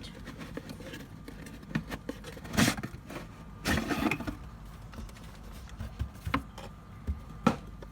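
Unboxing handling noises: several short rustles and knocks of packaging and parts being handled, over a low steady hum.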